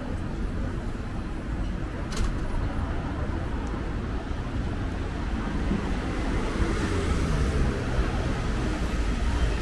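City street traffic noise: a steady rumble of cars driving along a busy boulevard, with a brief sharp click about two seconds in.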